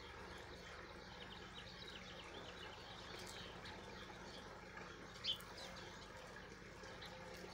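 Small birds chirping faintly in short high notes, with one louder chirp about five seconds in, over a steady low background hum.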